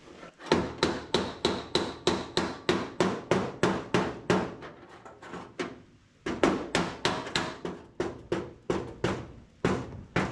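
Hammer blows on the sheet-steel body of a 1979 Ford F250, beating out a dent: a steady run of sharp strikes, about three a second, with a faint metallic ring in the first half, a brief pause near the middle, then another run.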